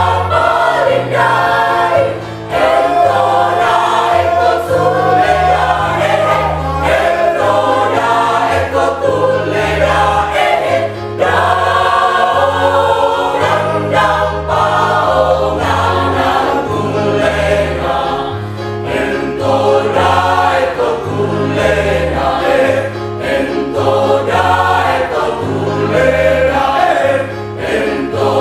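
Mixed choir of men and women singing in parts, loud and unbroken.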